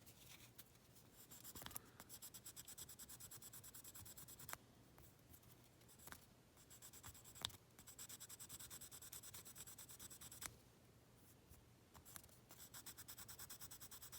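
Sanding stick rubbed in quick back-and-forth strokes over a plastic model part, smoothing a glued seam flush. The faint, rapid scratching comes in three runs separated by short pauses, with a few light clicks between them.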